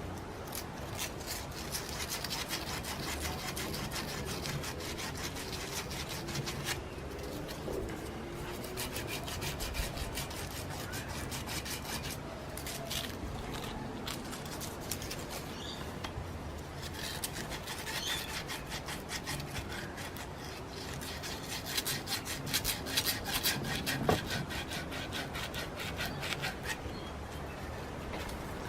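Emery tape rubbed briskly back and forth around the end of a copper pipe, a fast scratchy rubbing in several spells with brief pauses, cleaning the copper bright for soldering.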